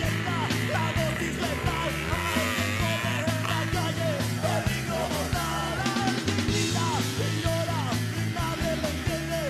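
Rock music with a singing voice over a steady bass line and drum beat.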